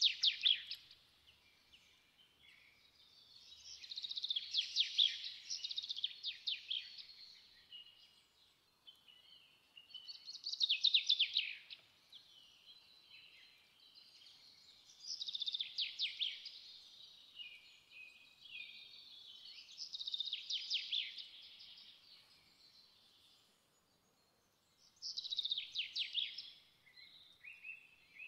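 A songbird singing short phrases of rapid trills with gliding notes, about six phrases each a second or two long, repeating every five seconds or so with quiet gaps between.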